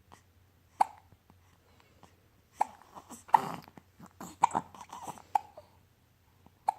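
A person hiccuping repeatedly: about six short, sharp hiccups at irregular spacing, with breathing and small vocal noises between them around the middle.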